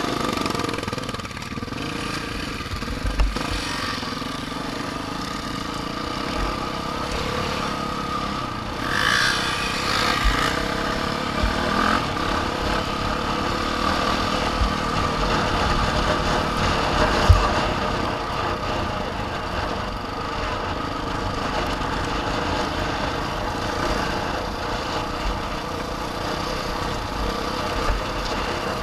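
Off-road vehicle's engine running steadily as it drives along, with two sharp knocks, about three seconds in and the louder one around seventeen seconds in.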